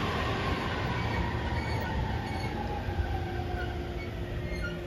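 E231 series 1000 electric commuter train braking into a station: the motor and inverter whine falls slowly in pitch as the train slows, over the rumble of the wheels. A steady lower hum sets in near the end, with brief high squeaks from the wheels or brakes.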